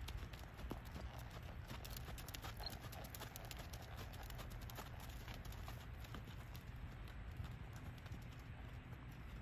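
Hoofbeats of a ridden American Quarter Horse moving on a dirt arena, a run of short irregular clicks, over a steady low rumble.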